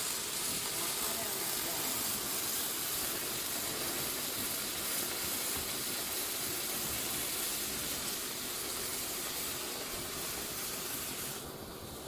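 Robotic pulsed MIG (GMAW-P) welding arc, a steady hiss. The hiss thins out near the end.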